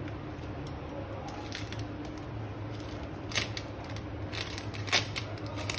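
A few light clicks and taps over a low steady hum, the sharpest about five seconds in.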